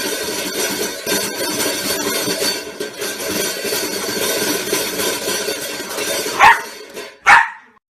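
A dog barking twice near the end, two short loud barks under a second apart, over steady background noise.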